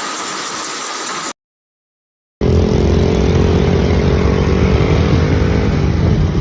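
A steady hiss that cuts off about a second in. After a short gap, a loud engine starts running with a low rumble and a steady hum.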